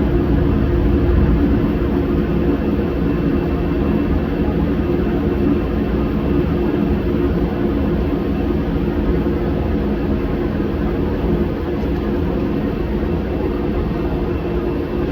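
Shop heater running with a steady drone and a low, even hum.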